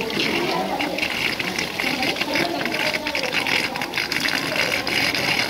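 Water splashing and churning as swimmers kick in the pool, a busy, irregular crackle of many small splashes, with indistinct voices underneath.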